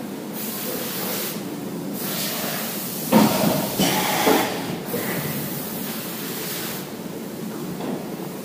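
CNC milling machine's pneumatic tool release while the touch probe is taken out of the spindle: three bursts of compressed-air hissing, with clunking and rattling of the tool and holder about three seconds in.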